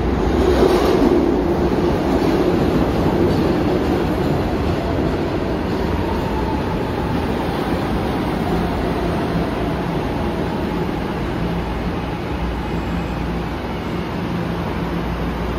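SEPTA Market-Frankford Line subway train running on the rails, a steady rumble with some clickety-clack of the wheels. It is loudest in the first few seconds and eases off slightly after that.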